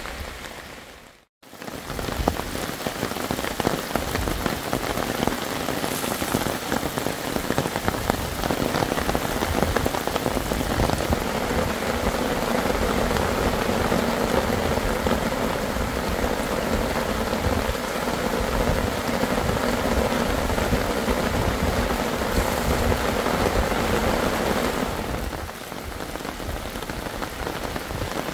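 Heavy rain pouring down steadily. It cuts out for a moment about a second in, then returns at full strength.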